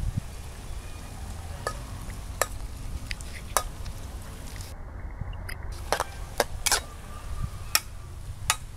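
Metal spatula stirring and scraping through pork and green tomato slices frying in a steel wok, with sharp clinks of metal on metal at irregular intervals, several coming close together near the end.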